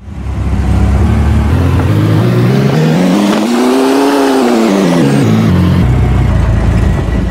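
A motor vehicle's engine, loud and close, speeding up and then easing off: its pitch climbs to a peak about four seconds in and falls back, over a steady rush of road and wind noise.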